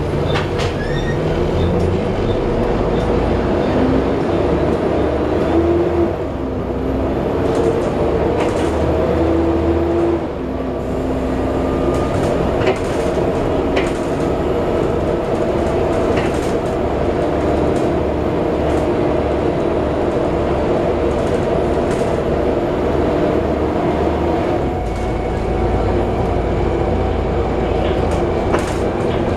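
Interior of a Plaxton President double-decker bus on the move: the engine and cooling fan run loudly and steadily, with a whine that rises and falls as the bus accelerates and eases off.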